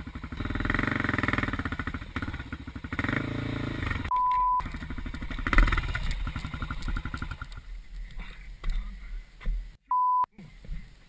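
Off-road motorcycle engine running with a rapid, even firing beat, the level rising and falling. A loud thump comes about five and a half seconds in, and two short, steady beeps of about half a second each sound, one around four seconds in and one near the end.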